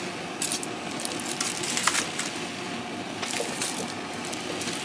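Aluminium foil crinkling as foil-wrapped rolls are handled and set into a stainless steel steamer pan, with a few light knocks and clicks against the metal.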